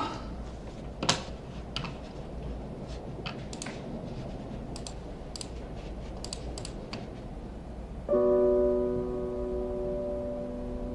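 Scattered, irregular clicks of computer keys over the first several seconds. About eight seconds in, a held chord of background music starts suddenly and slowly fades.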